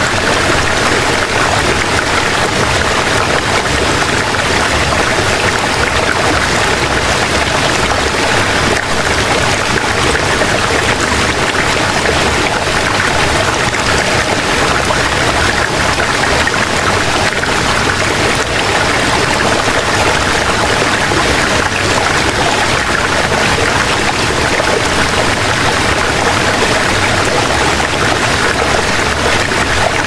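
Steady rushing noise of running water, even and unbroken.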